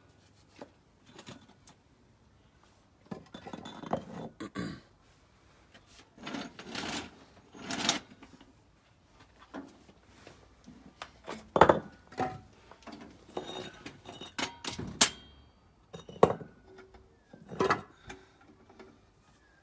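Scattered clinks, knocks and scrapes from handling tools and parts during an engine and gearbox installation, with several sharp knocks in the second half.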